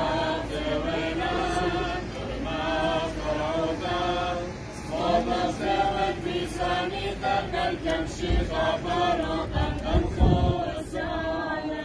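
A small group singing a church hymn together in unison, unaccompanied, with long held notes. There are a few low thumps near the end.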